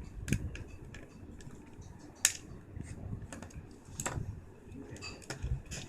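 Small scattered clicks and taps of a screwdriver working a screw out of a plastic controller case, with a sharper click about two seconds in and another about four seconds in.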